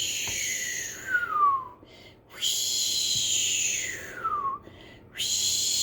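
A woman's voice imitating a howling snowstorm wind: three breathy, whistling 'hoooo' glides, each falling in pitch, the third starting near the end.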